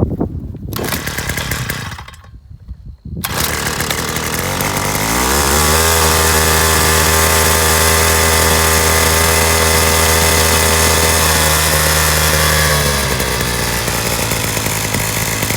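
Gas-powered jackhammer's small engine starting up: it catches about three seconds in, revs up to a steady high speed, and drops back to a lower idle near the end to warm up.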